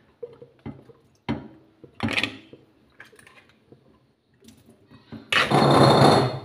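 Crabs and a ceramic bowl being handled at a sink: a few separate knocks and clatters, then a louder rush lasting about a second near the end.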